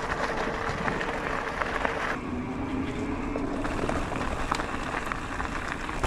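Electric mountain bike rolling over a wet, rooty forest trail: steady noise of tyres and rattling bike parts mixed with wind on the microphone, with scattered clicks and a faint steady whine for about a second midway.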